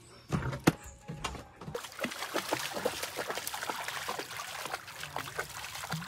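Shallow rocky stream trickling, with small splashes from a Samoyed wading through the water. A couple of soft knocks come in the first second, before the water sound starts.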